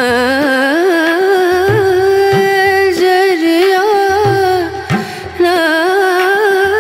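Background music: a held, wavering melody line in a South Asian style over low drum beats.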